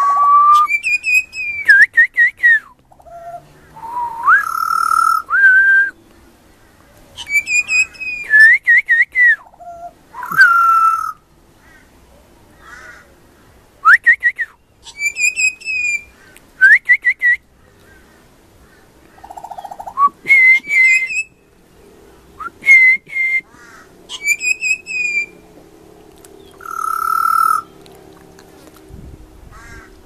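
Juvenile pied butcherbird singing: fluty whistled phrases of sliding and quickly repeated notes, in bursts of a second or two separated by short pauses.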